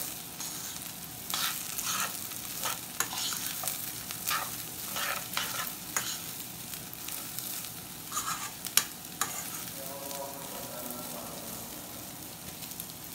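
Rice and browned vermicelli being stirred in hot oil in a metal pot: irregular spoon scrapes and grains shifting over a steady sizzle as the rice is sautéed. The stirring strokes thin out after about nine seconds, leaving mostly the sizzle.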